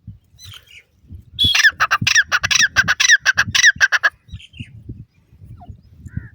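Grey francolin (teetar) calling: a loud, rapid series of short, squawky, curved notes, about six a second, lasting under three seconds and starting a little over a second in. Low bumping noises run underneath.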